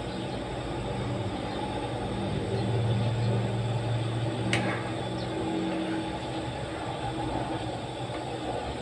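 A steady low motor-like hum that swells near the middle, with a single sharp clink of a metal ladle against the soup pan about halfway through.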